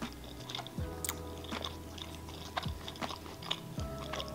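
Close-up chewing of a soft tortilla wrap with the mouth closed: wet smacks and small clicks at irregular intervals.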